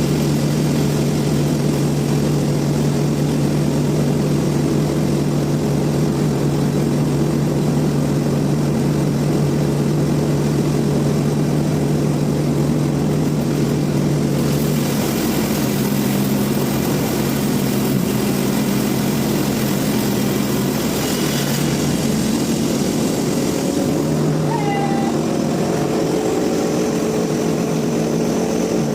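Sawmill machinery running with a loud, steady hum. About halfway through the pitch shifts and a hiss rises over it.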